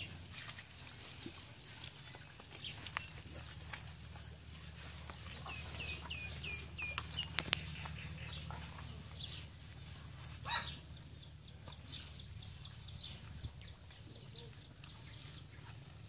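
Farmyard sounds over a low steady hum: scattered clicks and knocks, a run of five quick falling chirps a little past five seconds in, and a short rushing burst about ten and a half seconds in, followed by a fast train of faint ticks.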